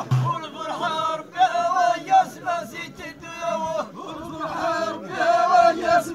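A line of men chanting together in unison in Ahidous, the Amazigh group song of the Middle Atlas, the melody moving in phrases with some notes held long.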